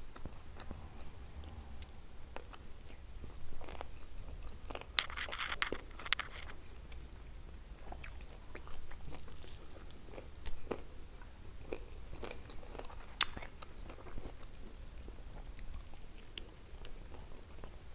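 A person biting and chewing roasted chicken wings, with scattered crunchy bites and mouth clicks and a denser run of crunching about five seconds in.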